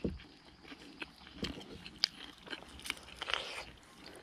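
Chewing and biting on deep-fried banded bullfrogs eaten whole: irregular small crunches and mouth clicks.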